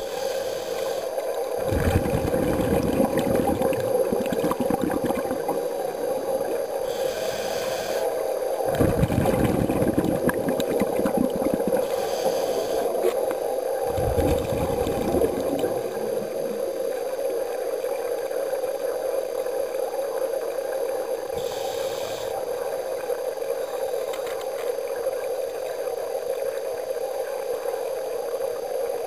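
Underwater recording of a scuba diver breathing: brief hisses of inhalation through the regulator, then gurgling rushes of exhaled bubbles, three of them in the first half, over a steady hum.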